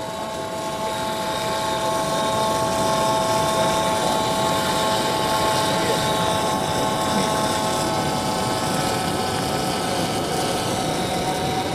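Daiwa Tanacom electric fishing reel's motor whining steadily as it winds in a long line of traces, over a constant background hiss.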